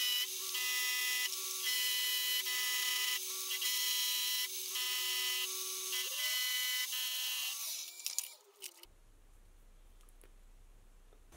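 Milling machine end mill taking a slow, light cut along an angled slot in a metal block. There is a steady spindle whine and a ringing cutting tone that breaks off and resumes about once a second. The cut stops with a few clicks about eight seconds in, followed by near silence.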